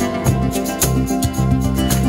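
Background music led by plucked guitar, with a steady beat.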